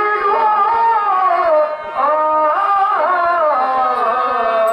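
A solo voice singing a stage-drama verse in Carnatic style, in long held notes with sliding ornaments, over a steady sustained accompanying tone and light hand-drum strokes.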